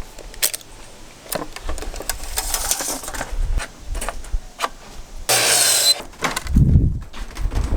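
Pneumatic nail gun firing into roof framing: scattered sharp clacks. A loud burst of hiss lasting about half a second comes a little after five seconds in, and a low thump follows shortly after.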